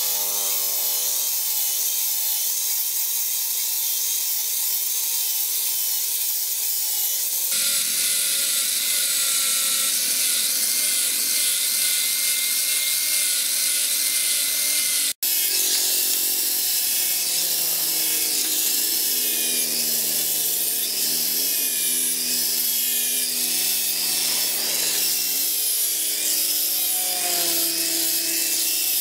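Electric angle grinder with a sanding disc running against a spring-steel machete blade: a steady motor whine over a grinding hiss, the whine's pitch wavering as the disc is pressed onto the steel in the later part. The sound cuts out for an instant about halfway through.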